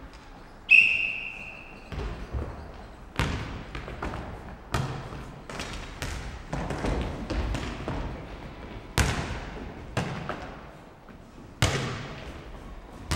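A short referee's whistle blast opens the point. After it comes a string of sharp thuds about every one to two seconds: the futnet ball being kicked and bouncing on the wooden sports-hall floor, each hit echoing around the hall.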